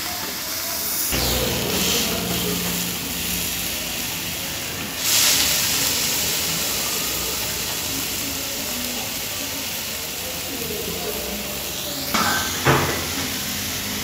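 Steady hissing sizzle of food cooking in a hot pan, surging louder about five seconds in, with two short knocks near the end.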